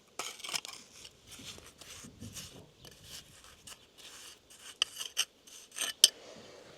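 Irregular scraping and rubbing of a trowel working lime mortar around a stone being set in a wall, with a few sharp clicks of steel or stone on stone in the second half.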